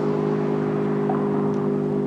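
Federal Signal STH-10 dual-tone electromechanical outdoor warning siren sounding its steady noon-test blast: a loud chord of several held tones at a level pitch.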